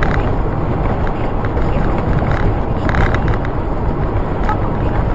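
Car driving at about 75–80 km/h on a rough, patched asphalt road, heard inside the cabin: steady tyre and engine rumble, with a few light knocks and rattles as the car goes over the bumps.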